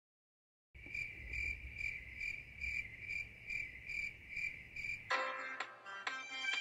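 Crickets chirping, an evenly pulsed high chirp about two and a half times a second, starting about a second in. It stops about five seconds in, when music begins.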